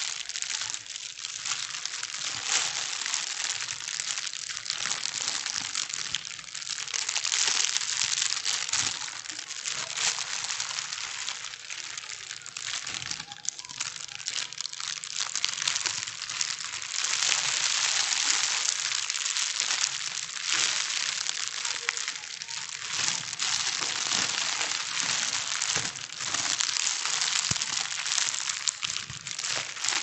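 Plastic bags being crumpled and crinkled continuously: a dense crackling rustle made of many small sharp crackles, swelling and easing every few seconds.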